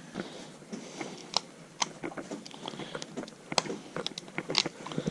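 Irregular small clicks and scrapes of a screwdriver and a light switch being handled while the wires are fastened into its terminals, with a few sharper clicks.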